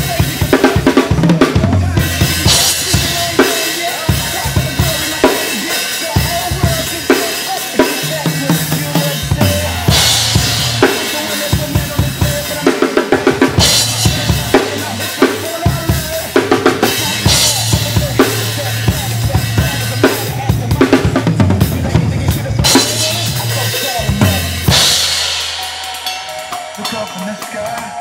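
Drum kit played in a steady groove, with bass drum and snare under cymbal crashes every few seconds. The toms carry Evans heads with dampening gel pads. The playing thins out and gets quieter near the end.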